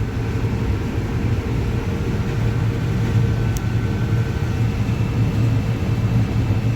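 Combine harvester running while shelling corn: a steady engine and machinery drone with a constant low hum and a few faint steady whines above it.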